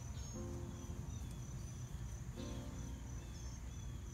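A steady high-pitched insect chorus, like crickets, with a few soft notes of background music.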